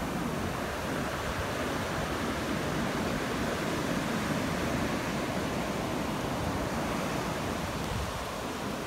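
Ocean surf washing up onto a sandy beach: a steady, even rush of noise.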